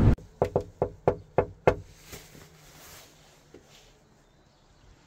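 A door being knocked six times in quick succession, sharp separate raps over about a second and a half.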